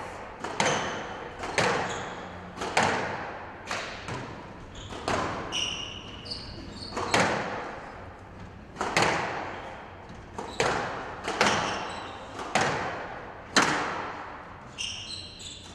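Squash rally: the ball is struck by rackets and smacks off the court walls in sharp, echoing hits every second or so, with court shoes squeaking on the floor now and then.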